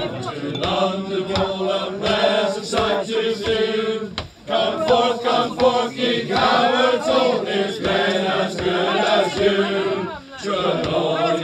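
Small male choir singing unaccompanied, several voices together. The singing breaks briefly twice, about four seconds in and again near ten seconds, as the singers catch breath between phrases.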